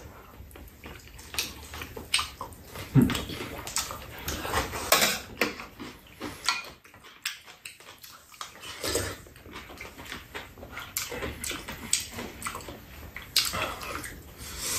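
People eating close to the microphone: irregular wet chewing and lip-smacking, with occasional light clicks of spoons and chopsticks against bowls.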